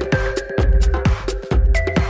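Electronic dance music from a DJ mix, with a steady beat about twice a second, short high ticks between the beats and held synth notes.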